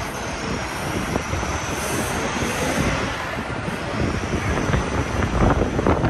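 Busy city street noise: a heavy rumble of passing vehicles with a faint high-pitched squeal above it, growing louder with a few knocks near the end.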